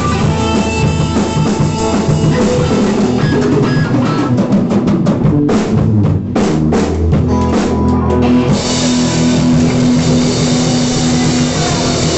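Live rock band playing: drum kit, bass and electric guitar. There is a quick run of drum hits about halfway through, after which a bright, steady high wash carries on under the guitar.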